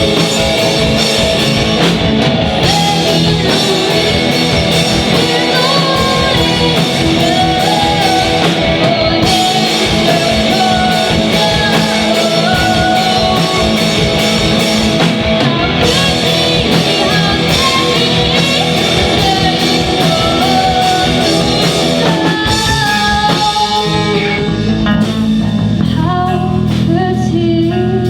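Live rock band playing: electric guitar, drum kit and a lead singer. Over the last few seconds the drums and cymbals thin out and held chords ring on.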